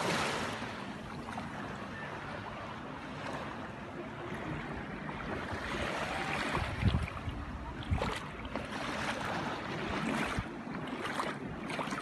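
Small waves washing and lapping on a sandy shoreline, with wind buffeting the microphone: a surge right at the start, a short low rumble about seven seconds in, and a few brief swells near the end.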